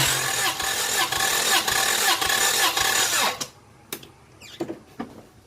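Starter motor cranking a Toyota Corolla engine that does not fire, its fuel injectors unplugged for a compression test, with an even pulsing as the cylinders come up on compression. The cranking winds down and stops after about three and a half seconds, followed by a few sharp clicks.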